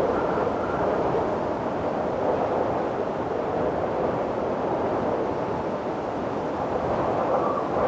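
Steady, strong wind blowing without a break, a full rushing noise with a faint high whistle at the start and near the end.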